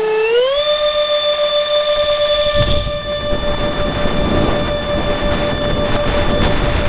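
Electric ducted fans of an RC A-10 jet whining at high throttle, rising in pitch about half a second in as they spool up, then holding a steady high note. A low rumble of wind noise joins from about two and a half seconds in.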